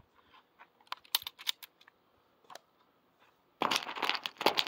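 Handling noise from a phone held close to its microphone: a few scattered clicks about a second in, then a run of loud rubbing and scraping near the end.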